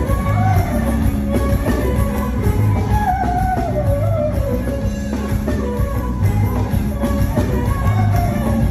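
Live band music with a steady beat and a woman singing over it into a microphone, amplified through the hall's PA.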